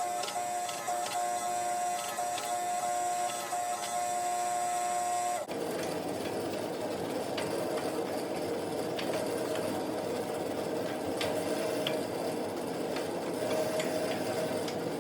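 Shop machinery running steadily: a motor's whine with a few steady tones, then, about five and a half seconds in, an abrupt change to a dense, steady rushing noise.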